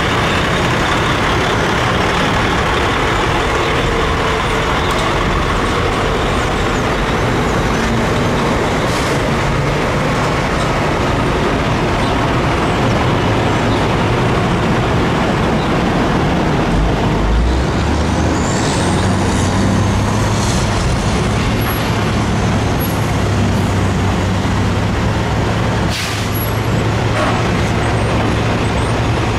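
Diesel semi trucks hauling sugarcane trailers drive through the mill yard over a loud, steady industrial din. A low engine drone builds in the second half. A high squeal, like brakes, comes about two-thirds through, and a single sharp knock follows near the end.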